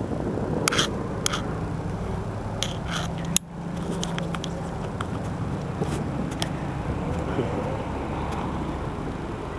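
Footsteps crunching on dry ground with a few sharp crackles and clicks, over a steady low rumble.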